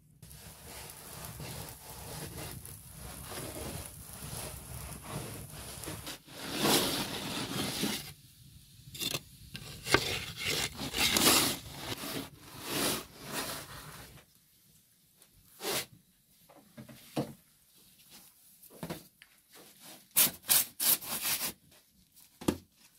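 Wooden bread peel scraping over the floor of a wood-fired bread oven in several long scrapes between about six and thirteen seconds in, as a baked flatbread is lifted out. Later come short scrapes and taps, a quick cluster near the end, as the baked flatbreads are stacked.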